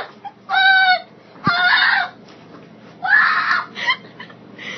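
A girl coughing and gagging on a mouthful of dry ground cinnamon, in four or so loud bursts with shrill, high-pitched cries between them.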